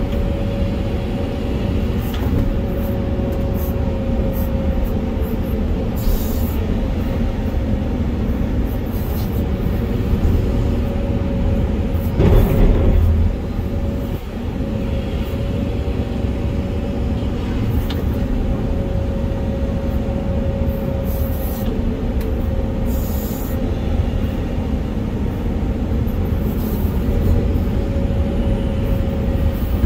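Volvo EC480EL excavator's diesel engine and hydraulics running under load, heard from inside the operator's cab, with a steady whine over the engine drone. A louder rumble about twelve seconds in.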